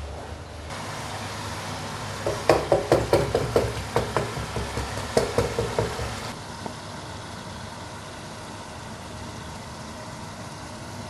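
Metal spoon knocking and scraping against a cooking pot as bubbling masala is stirred and fried: a quick run of clacks for a few seconds, over a steady hiss.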